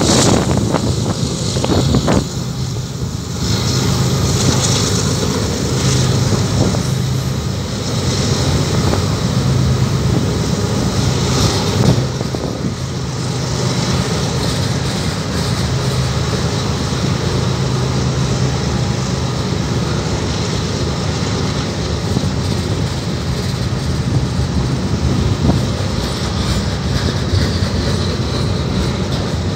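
Freight cars of a long train rolling past close by: a steady rumble and hiss of steel wheels on the rails, with a few sharp clacks over the rail joints in the first couple of seconds.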